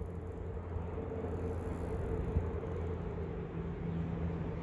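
Steady low outdoor rumble of wind and flowing river water, with no distinct events standing out.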